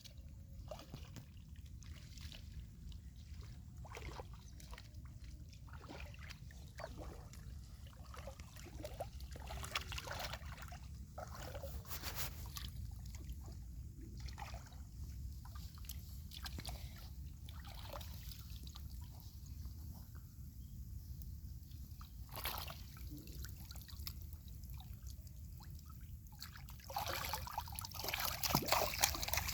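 Hands groping through shallow muddy water for catfish: irregular sloshing, trickling and dripping, with a steady low rumble underneath. The splashing grows louder and busier near the end.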